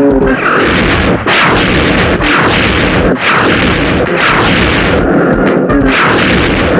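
Loud cinematic title-card sound effects: a run of explosion-like booms over a dense rushing noise, with no clear melody.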